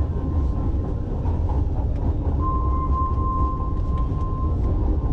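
Metro Manila MRT Line 3 train running, heard from inside the car: a steady low rumble, with a high steady whine that starts about halfway through and lasts about two seconds.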